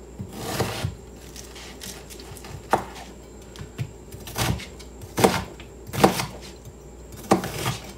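Chef's knife rough-chopping an onion on a plastic cutting mat: separate, unhurried knife strikes about a second apart, spaced unevenly.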